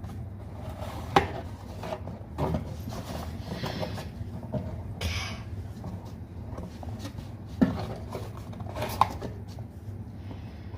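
Objects being handled and set down: a few sharp knocks and clinks, about a second in and twice near the end, amid rustling over a steady low hum.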